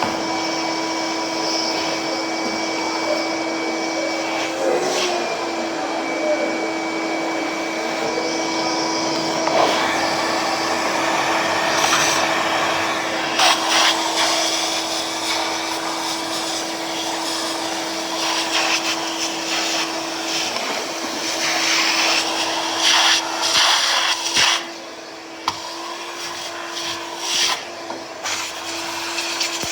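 A small motor running steadily with a constant hum and hiss, broken by scattered clicks and knocks that come more often in the second half.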